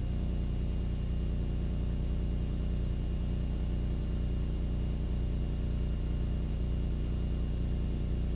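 Steady low electrical hum and buzz with a faint thin high whine, unchanging throughout: background noise of a videotape recording over a blank black picture.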